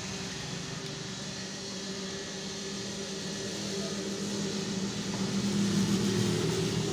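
A steady low motor hum with an even drone, swelling louder about five to six seconds in.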